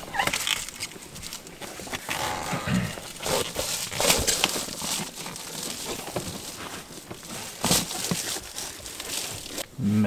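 Reflective bubble-foil window insulation being pulled off a van's side window: irregular crinkling and rustling with sharp clicks and knocks, loudest about four seconds in and again near the eight-second mark.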